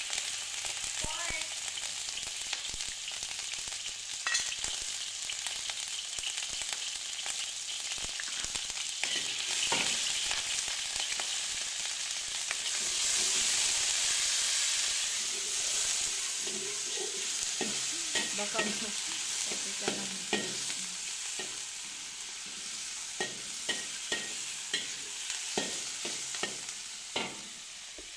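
Pork pieces sizzling in hot oil in a wok: a steady frying hiss that is loudest about halfway through. In the second half a metal spatula clicks and scrapes against the wok as the meat is stirred.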